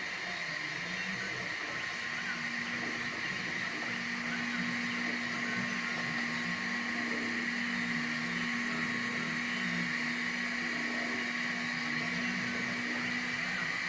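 CNC3018 desktop CNC machine running, its stepper motors whining with a pitch that rises and falls over a steady machine hum. A steady tone joins about two seconds in.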